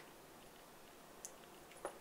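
Near silence: faint room hiss with two small plastic clicks, one about a second in and one near the end, from a hand pressing the switches on LED lanyard battery boxes.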